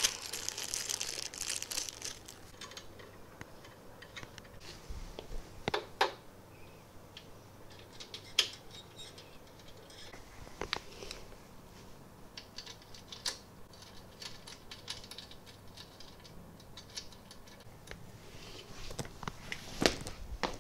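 Scattered light clicks and taps of small parts and screws being handled while fitting parts into a 3D printer's frame, with a rustle of plastic in the first two seconds.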